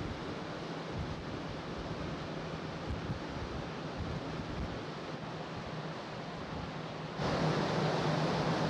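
Wind on the microphone and the wash of the sea on the open deck of a ferry under way, over a steady low hum from the ship. The noise gets louder about seven seconds in.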